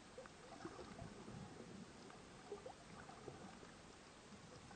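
Faint underwater ambience: scattered small clicks and crackles over a low, uneven rush of water.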